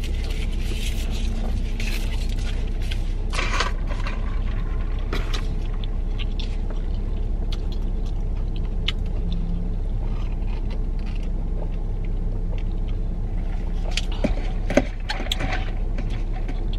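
Steady low rumble of an idling car heard inside the cabin, with paper crinkling from a straw wrapper about three seconds in and a few light clicks and handling noises.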